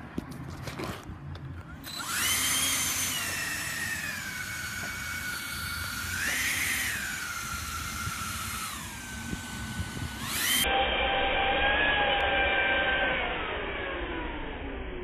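High-pitched electric whine from an RC buggy with a ducted-fan (EDF) jet, its pitch rising and falling with the throttle: it climbs about two seconds in, surges once in the middle, drops, then jumps sharply and falls away slowly near the end.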